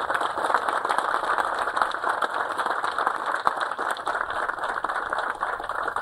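Audience applauding: many hands clapping in a steady, dense patter.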